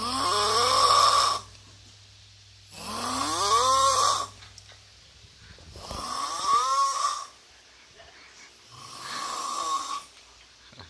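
A person snoring in four long snores about three seconds apart, each rising in pitch as it goes; the last one is softer.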